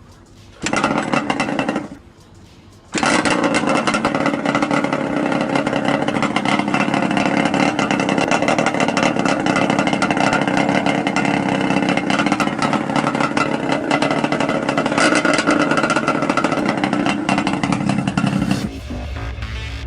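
Yamaha Banshee 350's twin-cylinder two-stroke engine, running briefly about a second in, then after a short pause starting again and running steadily for about fifteen seconds.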